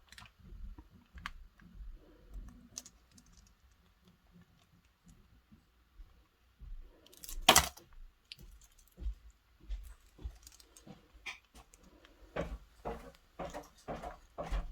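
Light clicks and taps of small metal keyring hardware being handled and fitted with pliers, with one sharper click about seven and a half seconds in and a quick run of taps near the end.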